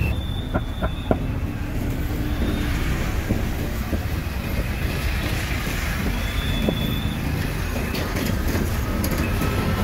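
Busy street ambience: a steady rumble of road traffic, with a few sharp clicks about half a second to a second in.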